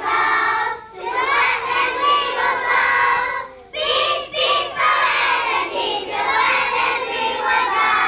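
A group of young children singing together, with two short breaks between phrases.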